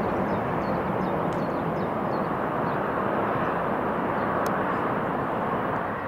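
Steady, distant rushing roar of a twin-engine jet airliner's engines as it lands, with small birds chirping in the first couple of seconds.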